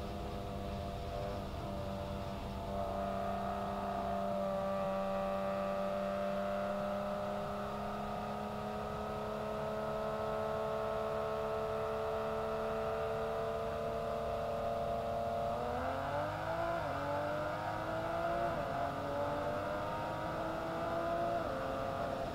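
Sports car engine in a highway roll race: a steady cruising note that creeps slowly up in pitch, then about two-thirds of the way in it goes to full throttle, its pitch climbing fast with sudden drops at each quick upshift as the car pulls hard to high speed.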